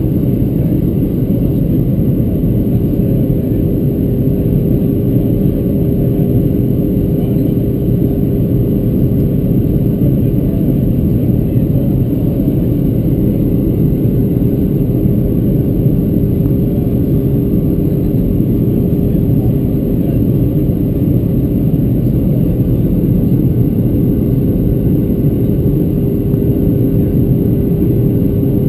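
Steady cabin noise of a Boeing 737-600 on approach, heard from inside the cabin at a window seat: the CFM56-7B turbofans and the airflow over the fuselage make an even, low rush with a steady hum running through it.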